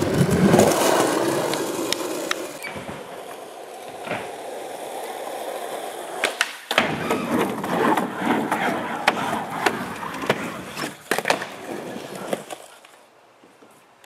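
Skateboard wheels rolling over skatepark ramps, broken by sharp clacks of the board popping and landing during tricks. The sound fades out near the end.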